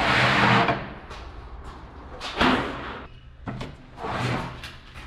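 Rubber floor mats being handled and laid on a concrete floor: several separate bursts of scuffing and flapping, the loudest right at the start.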